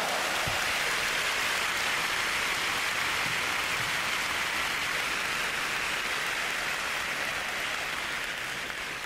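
End-screen sound effect: a steady hiss of rushing noise with no tone or beat, easing off slightly toward the end.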